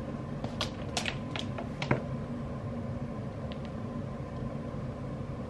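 Steady low room hum, with a few soft clicks and rustles of handling between about half a second and two seconds in, and a couple of fainter ticks later.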